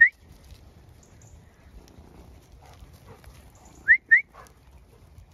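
Two pairs of short, sharp rising whistles, one right at the start and another about four seconds in: a shepherd's whistle commands to a working dog.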